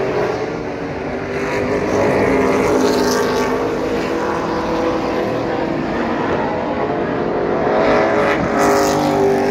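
Race cars' engines running at speed around a paved oval track, the pitch rising and falling as cars come past. It is loudest about eight seconds in, as a car goes by close.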